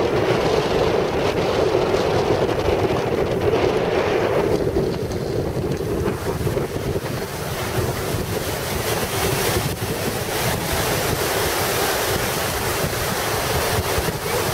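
Steady rushing of churning whitewater in an artificial slalom channel, with wind buffeting the microphone.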